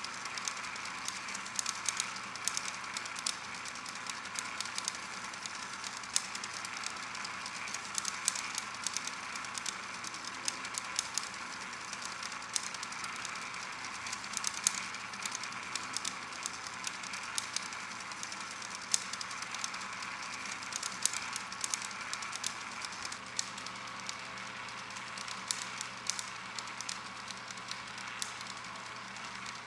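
Tyrachoscope motorized flipbook machine running: a steady mechanical whir over a low hum, with irregular sharp clicks.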